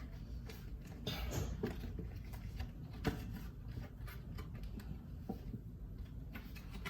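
Packaging being handled and opened: irregular rustles and light clicks, with one sharper click about three seconds in.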